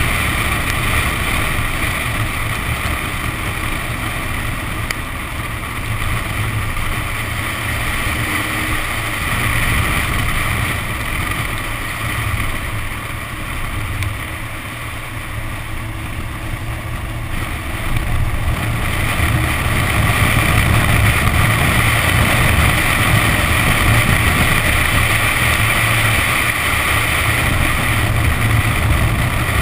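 Wind buffeting and tyre spray from a Nissan 370Z driven hard on a soaking wet track, picked up by a camera mounted outside the car. The noise eases around the middle and builds again a little past halfway.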